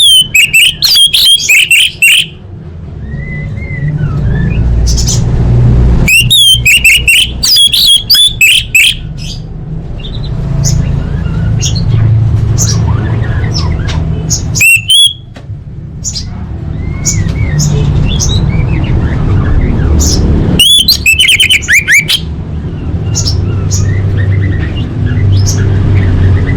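Orange-headed thrush (anis merah) singing in several bursts of rapid, high whistled phrases a few seconds apart, with softer notes between, over a steady low rumble.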